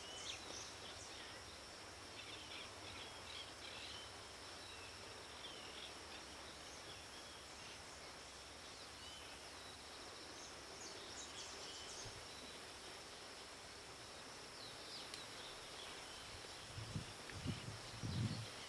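Faint outdoor ambience: a steady high insect drone, with scattered short bird chirps. A few low thumps near the end.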